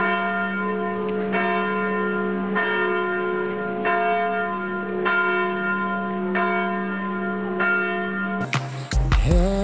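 Church bell tolling, a stroke about every second and a quarter, each note ringing on over a steady hum. Near the end it cuts abruptly to a pop song.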